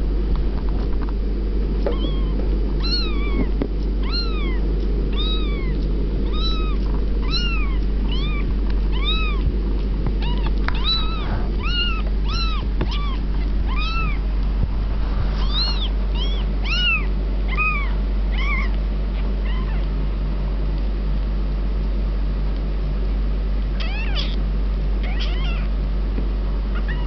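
A very young kitten mewing over and over in short, thin, high cries, each one rising and then falling in pitch, about one a second. The cries stop about twenty seconds in and come back briefly near the end, over a steady low hum.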